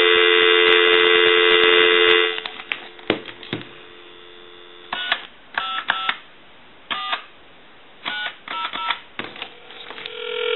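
Dial tone on a Pottery Barn Grand Phone's line, cut off a little over two seconds in, followed by a string of short touch-tone (DTMF) beeps as a time-and-temperature number is dialled. A steady ringing tone starts near the end as the call goes through.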